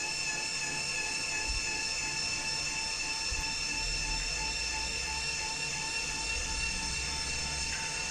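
Laser back-glass removal machine running with a steady high-pitched whine made of several fixed tones, over a low hum that comes up about halfway through.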